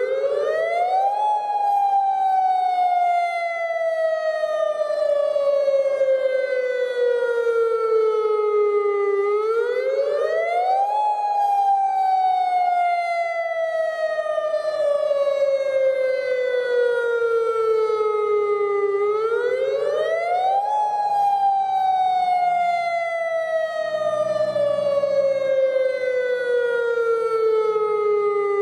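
Outdoor tornado warning siren sounding a repeating wail: its pitch rises quickly for about a second, then falls slowly for about eight seconds, three times over.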